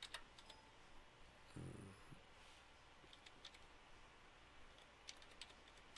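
Faint computer keyboard keystrokes in near silence: scattered short runs of key clicks as a telephone number is typed in.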